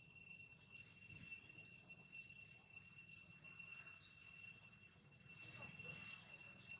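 Forest insects: a faint, steady high buzz with a short high chirp repeating about every two-thirds of a second.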